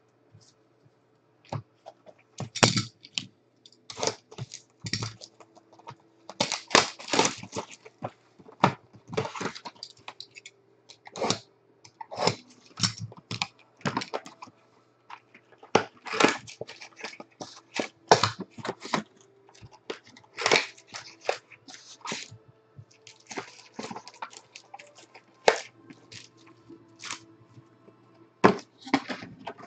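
A 2017 Bowman Chrome hobby box being torn open and its foil packs pulled out: a run of irregular crinkles, tears and crackles of wrapper and cardboard.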